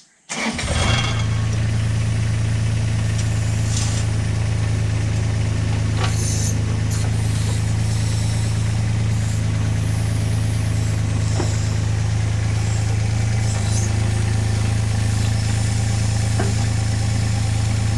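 Mini excavator's diesel engine coming in about half a second in, then idling steadily with a deep, even hum.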